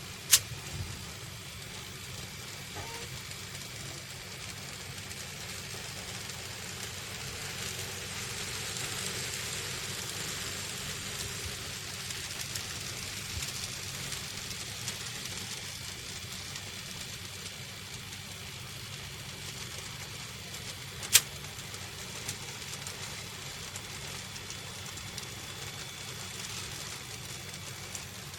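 N gauge model trains running on the layout: a steady whirring and rattle of small motors and wheels on track that swells for a few seconds in the first half, broken by two sharp clicks, one at the very start and one about three quarters of the way through.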